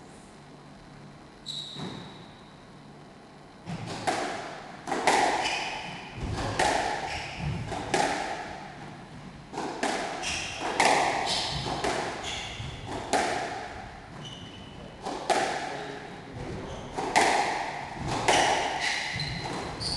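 Squash rally: the ball struck by rackets and smacking off the walls about once a second, each hit echoing around the court, from about four seconds in until near the end. Short high squeaks of court shoes on the wooden floor come between some hits.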